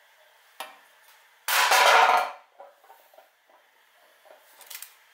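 Crumpled aluminium beer can catch can being handled and pulled off a minimoto: a sharp click, then a loud crinkling rattle of thin metal lasting under a second, followed by a few light taps.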